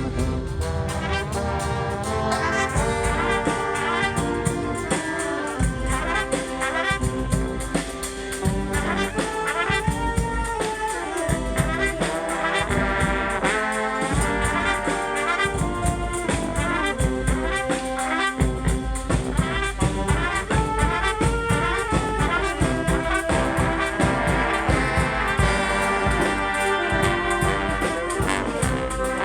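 Live brass street band playing a funk tune: horns such as trumpets and trombones carrying the melody and riffs over a steady beat.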